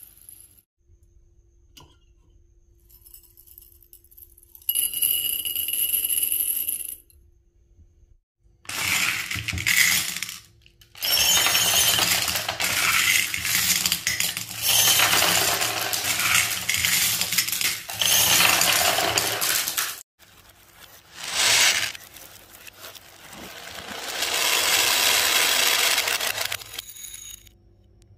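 Marbles rolling and clinking in several runs with short pauses between them. The longest run is dense and lasts about ten seconds in the middle, and the last one swells up and dies away.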